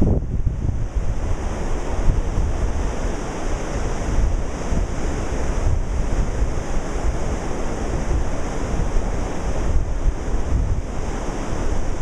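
Ocean surf: waves breaking and washing in, with no distinct events. Wind is buffeting the microphone.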